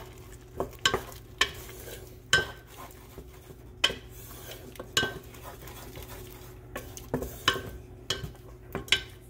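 Wooden spatula stirring and scraping a thick tomato-onion masala in an aluminium pressure cooker, knocking against the pot's sides at irregular moments, roughly once a second. Under it is a faint sizzle from the masala cooking on high heat to dry off its remaining water.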